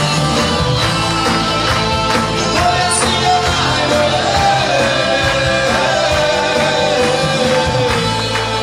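Live band playing a song with a singer, over a steady beat.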